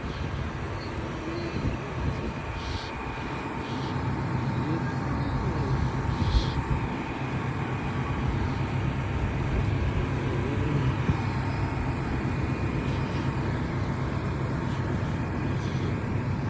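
Fire engine idling steadily, a low hum that grows a little louder about four seconds in, with a few brief clicks.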